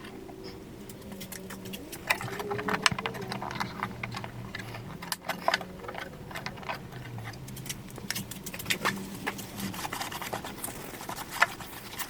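Sped-up handling noise from work on an old acoustic guitar: many quick clicks, taps and scrapes of hands and tools on the wooden body from about two seconds in, over a low hum that wavers in pitch.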